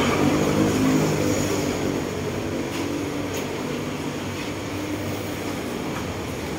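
An engine hum that fades away over the first two seconds, then a steady mechanical background noise.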